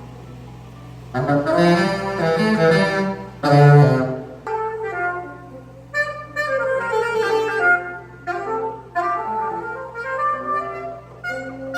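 Saxophone playing soundcheck phrases through a PA system: a few loud held notes, then a quicker melodic run from about four and a half seconds in.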